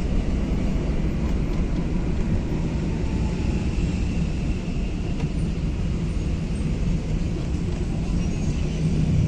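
Steady street traffic noise: a continuous low rumble of passing vehicles and engines.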